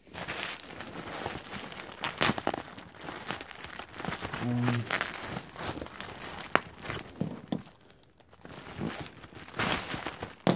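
Plastic bubble wrap crinkling and rustling as it is handled and pulled open, with many sharp crackles and a short lull about eight seconds in.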